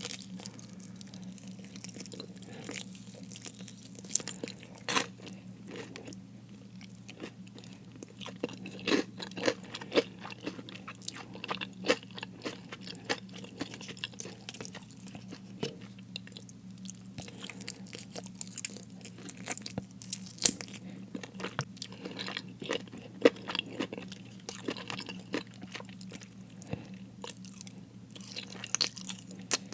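Close-miked chewing and crunching of crispy fried food, with irregular crackly bites, a few of them louder, over a steady low hum.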